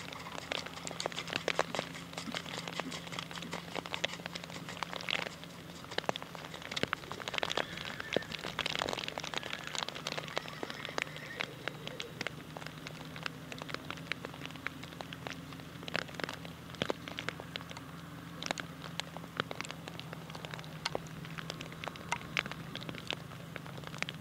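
Raindrops pattering irregularly on a surface close to the microphone, as scattered sharp ticks and crackles over a steady low hum.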